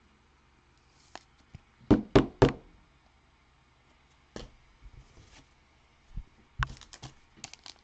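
Trading cards and packs being handled on a tabletop, knocking and tapping against it. There are three sharp knocks close together about two seconds in, another near the middle, and a quick run of lighter taps near the end.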